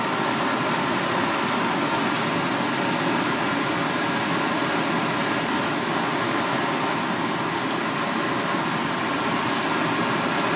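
Steady rushing kitchen noise with a faint constant hum, as a pan of broth with fish balls simmers on a gas burner.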